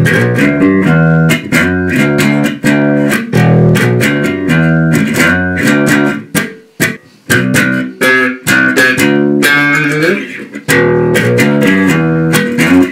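Electric bass guitar strung with inexpensive Chinese strings, played as a busy line of plucked notes with sharp, bright attacks. The playing breaks off briefly about seven seconds in.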